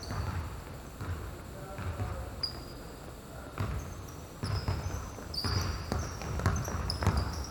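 A basketball being dribbled, bouncing about once a second in an uneven rhythm, with a few short high squeaks.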